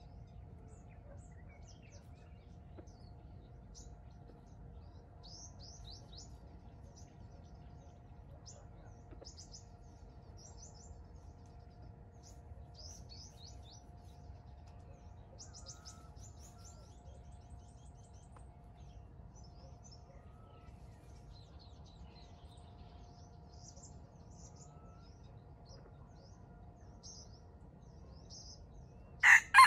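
Small birds chirping faintly in quick high trills, on and off, over a faint steady drone. Near the very end a junglefowl rooster starts to crow loudly.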